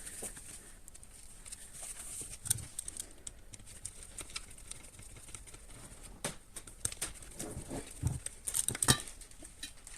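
Scattered light clicks and knocks from handling the parts of an Audi A6 C5 heater blower motor as it is put back together, with a few sharper knocks in the second half.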